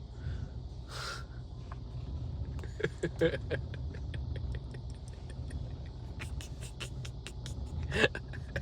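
Steady low rumble of a car in motion, heard from inside the cabin, with a run of quick light clicks and two louder knocks.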